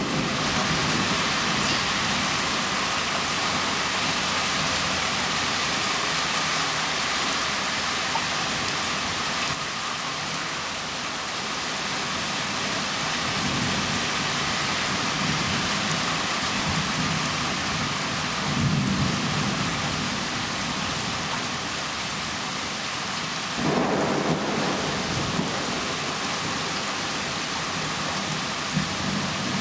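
Steady heavy rain in a thunderstorm, with several low rumbles of thunder swelling and fading, one coming in abruptly late on. The storm is already weakening.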